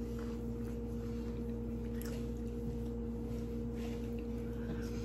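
A steady electrical hum with a constant, even pitched tone over it and no speech, with a few faint ticks.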